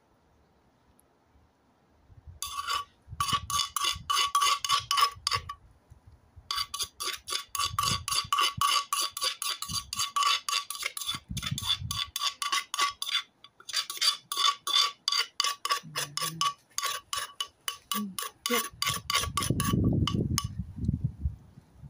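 A metal spoon clinking rapidly and evenly against crockery, each strike ringing at a clear pitch, in long runs with short pauses. A low rumble rises near the end.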